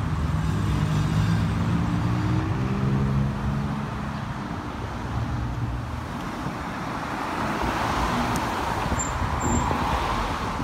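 McLaren 570S's twin-turbo V8 pulling away and accelerating, its pitch stepping up through the first three seconds before it fades into steady traffic noise. Near the end a passing car's tyre and road noise swells close by.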